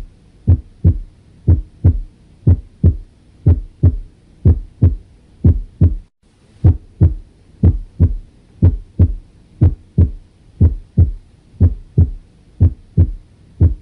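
Normal heart sounds on auscultation: a steady lub-dub, the first heart sound (S1, from closure of the mitral and tricuspid valves) with the second close behind. The pairs come about once a second, with a brief break about six seconds in.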